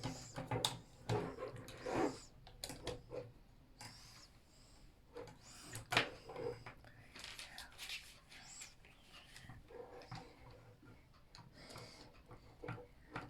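Meccano Junior construction-toy parts being handled and fitted together: scattered clicks, taps and rattles, with a faint voice in the background.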